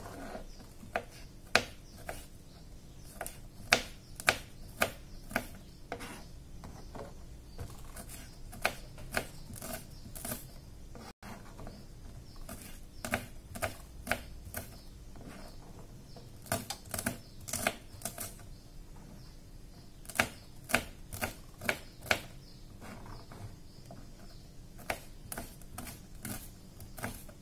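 Kitchen knife slicing small green bird's eye chilies on a plastic cutting board: sharp taps of the blade striking the board, coming irregularly in short runs with pauses between.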